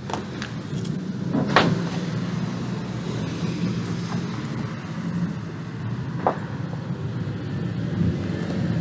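A steady low engine drone, swelling slightly, with a few sharp metallic clinks of aluminium cans being handled in a plastic bag, the loudest about a second and a half in.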